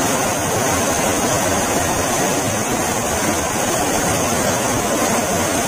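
Water rushing and churning out below a canal sluice gate, a steady, loud white-water sound.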